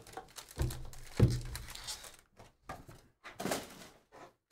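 Foil trading-card packs crinkling as they are pulled from a cardboard hobby box and set down in a stack, with two dull thumps about half a second and a second in.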